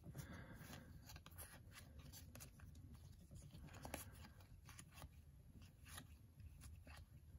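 Faint, irregular flicks and rustle of 2022 Topps baseball cards being slid one at a time through the hands while flipping through a pack, over quiet room tone.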